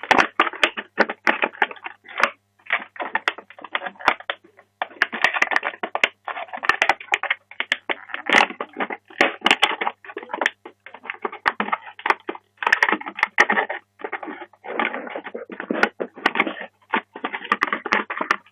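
Clear plastic clamshell packaging crackling and crinkling as it is bent and pried open by hand, a dense run of irregular crackles and clicks.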